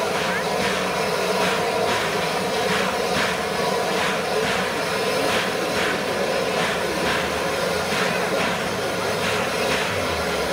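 Steam-hauled train running: a steady roar with an even beat about twice a second.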